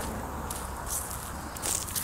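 Footsteps of a person in flip-flops walking over dry leaf litter, twigs and dirt, with a few scattered crackles.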